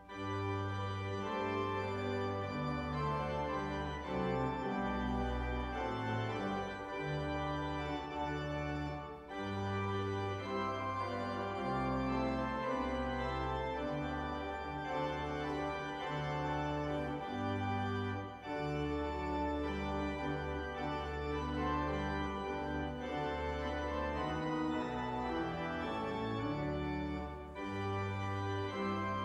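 Church organ playing a slow piece in held chords over a moving bass line, phrase by phrase, with a short break about every nine seconds.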